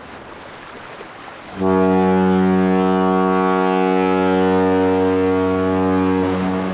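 A ship's horn sounds one long, steady, low blast starting about a second and a half in, over a soft rushing noise.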